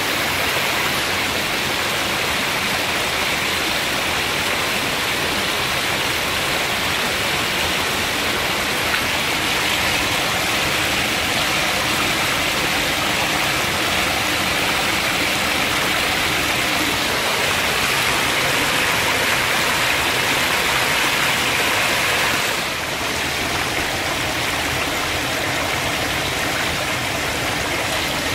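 Water rushing steadily over and through the wedgewire of a Coanda intake screen. The rush dips slightly in level about 23 seconds in.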